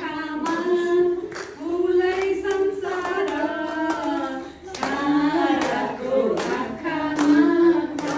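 Two women singing a song together, sharing one handheld microphone, their voices held in long sustained notes.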